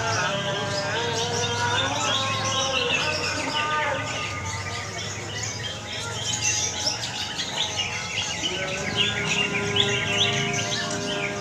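Several caged green leafbirds (cucak ijo) singing at once in a dense, overlapping chorus of quick chirps and trills, as at a songbird contest.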